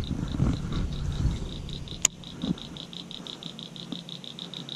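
A calling animal's high, rapid pulsing trill, about eight pulses a second, keeps going steadily over a low hum, with one sharp click about two seconds in.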